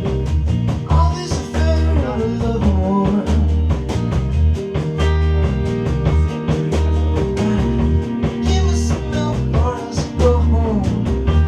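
Live rock band playing, with drums, bass and guitar. A voice sings over it about a second in and again near the end.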